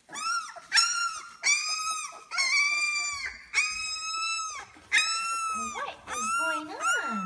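Labrador retriever puppy whining: a string of about eight high-pitched cries, each held briefly at a steady pitch and dropping at the end, roughly one a second.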